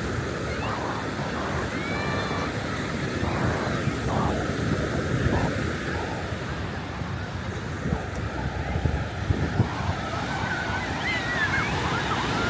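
Ocean surf breaking and washing up the beach, with wind buffeting the microphone. A few faint high calls come through in the background, more of them near the end.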